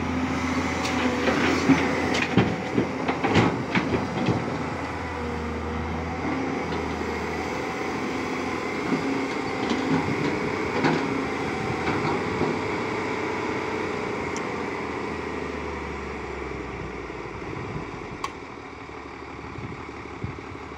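Heavy diesel engine of a Tata Hitachi EX200LC excavator running steadily at work, with a run of loud knocks and clanks in the first few seconds and a few more later. The engine sound drops off somewhat near the end.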